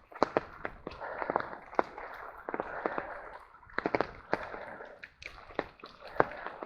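Irregular sharp taps and clicks, several a second in uneven clusters, over a steady hiss of falling rain.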